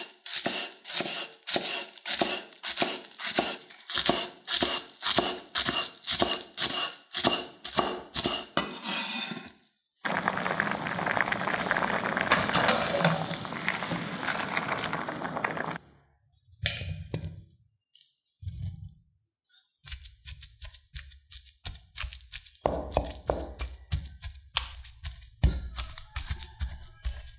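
Chef's knife chopping green onion on an end-grain wooden cutting board, steady chops about two or three a second. The chopping stops after about nine seconds and gives way to water boiling in a pan, a steady bubbling hiss. Near the end come irregular dull thuds of a wooden masher pounding boiled potato in a glass bowl.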